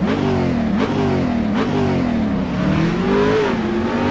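Car engine revving, its pitch climbing and dropping back several times in a row.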